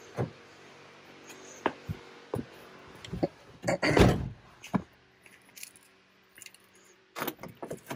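2017 Ford Police Interceptor Utility's driver's door shut with a thunk about four seconds in, among small clicks and knocks of someone settling into the driver's seat. Another quick run of clicks comes near the end.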